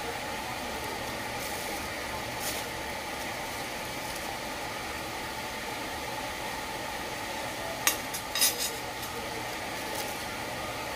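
Steady mechanical hum of a ship heard inside a passenger cabin. A few short clicks and rustles from handling things on the table come about eight seconds in.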